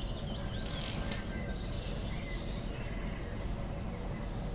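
Small songbirds chirping and twittering in the background, mostly in the first half, over a steady low rumble.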